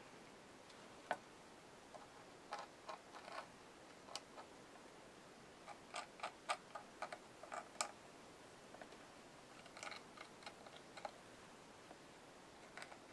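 Faint, irregular clicks and small pops from a plastic squeeze bottle of thick dimensional paint being pressed out through its fine tip, coming in scattered clusters.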